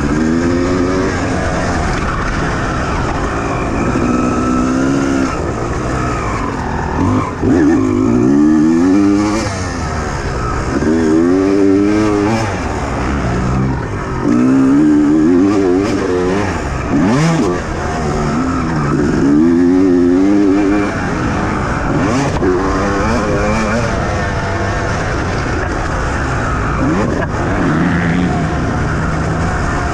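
Motocross dirt bike engine heard onboard, revving up hard and dropping back again and again as the rider accelerates out of turns and shuts off into them.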